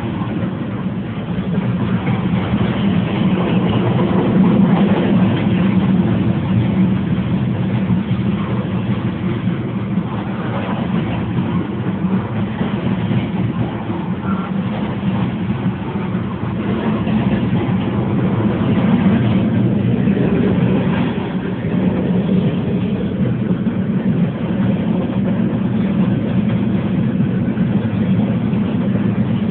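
Steady engine and road noise inside a moving car's cabin, a low rumble that swells a little twice.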